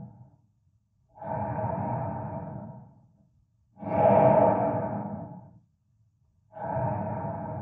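Sound effect of a person breathing slowly and heavily, with a hollow, resonant tone. Each in- and out-breath lasts about two seconds, with short pauses between, and a stronger breath alternates with a softer one.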